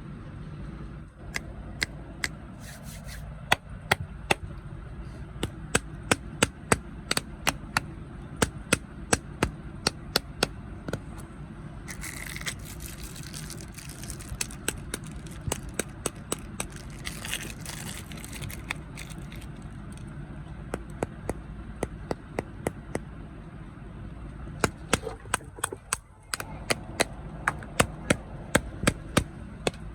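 Crunchy snacks being bitten and chewed close to the microphone: many sharp crunches, sparser in the middle and coming fast near the end. Two short spells of crinkling from a snack wrapper being handled come about 12 and 17 seconds in, over a steady low hum.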